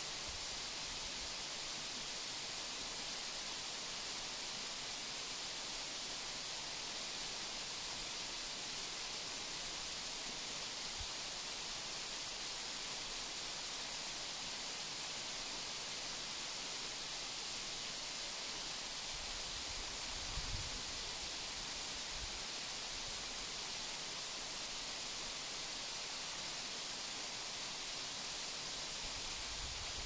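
Waterfall: a steady rush of falling water, heard as an even, bright hiss, with a brief low rumble about twenty seconds in.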